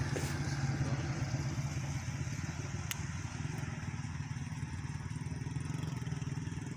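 A small engine running steadily at an even speed, with a single sharp click about three seconds in.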